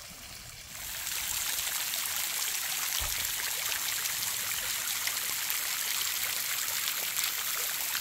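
Water spraying and dripping down a moss-covered rock column, a steady hiss of many falling drops that steps up in loudness about a second in.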